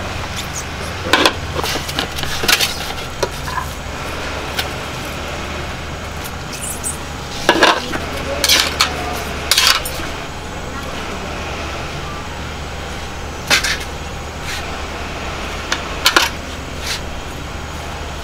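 Irregular clinks and knocks of bowls and metal chopsticks being handled and set down as noodles are served, over a steady low background hum.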